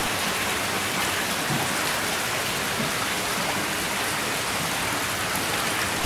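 Steady rush of water splashing into a koi holding tank.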